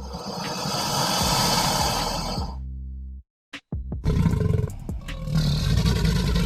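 Recorded animal roars played over electronic background music: a harsh roar in the first two and a half seconds, then after a brief silent gap a second, louder and deeper roar.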